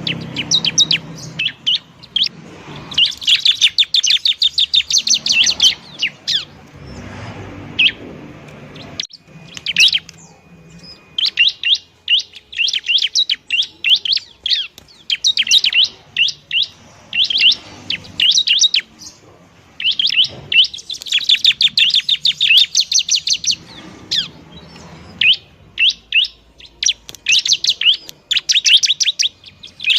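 Bar-winged prinia (ciblek) singing loudly: rapid trains of high chirps in bouts of a second to a few seconds, with short pauses between them.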